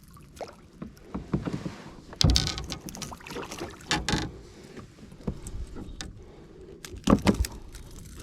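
Creek water splashing and sloshing in irregular bursts, three of them louder, about two, four and seven seconds in.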